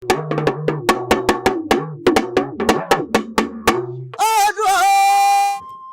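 Percussion-led intro music: a quick run of drum hits over a bass line, then a loud held melodic note that wavers slightly and fades to a thin steady tone near the end.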